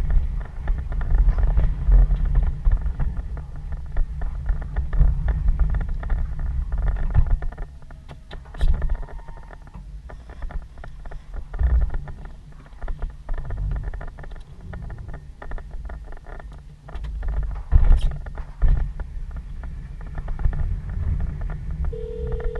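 Snow-removal vehicle's engine running with a heavy low rumble, along with clunks and rattles as it works the snow; a sharp bang stands out about 18 seconds in.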